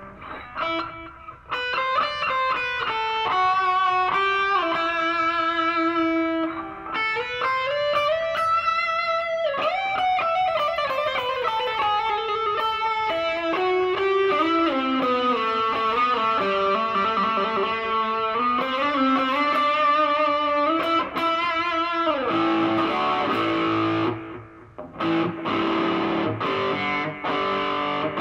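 Electric guitar played through an Artec G10x 10-watt practice amp: a lead line of long, sustained notes with slow bends and slides up and down in pitch, broken by a short pause near the end.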